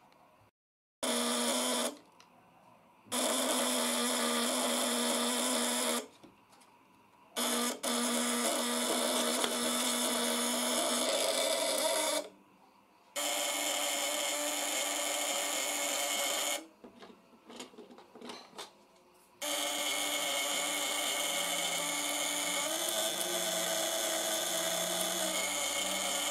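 Homemade fish-shocker's vibrating contact breaker with widia-steel points, buzzing steadily as it chops the 12 V battery current into the coil. It runs in five spells of a few seconds each, starting and stopping as the supply wire is touched to and taken off the battery terminal.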